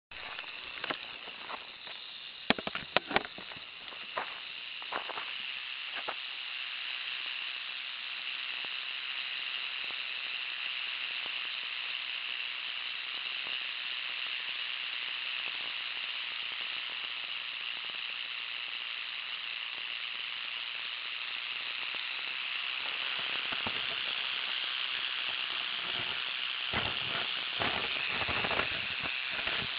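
Arizona black rattlesnake buzzing its tail rattle in a continuous, steady hiss-like buzz, the defensive warning of a disturbed rattlesnake. Scattered sharp clicks and knocks come in the first few seconds and again near the end.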